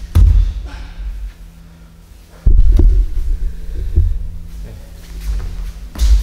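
Thuds and scuffing of two grapplers' bodies moving and landing on tatami mats, heaviest from about two and a half seconds in. A steady low hum runs underneath.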